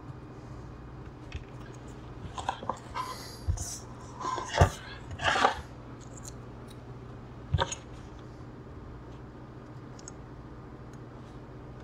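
Tools and wires being handled and set down on a workbench: a run of clicks, light knocks and rustling for a few seconds, then one sharp click, over a steady low hum.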